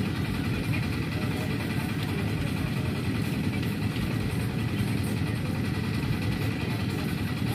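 Steady low engine rumble with a faint, thin high tone held above it.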